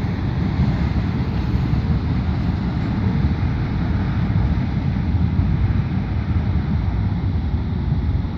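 Steady low rumble of wind buffeting the microphone, mixed with the distant running of a freight train of tank cars.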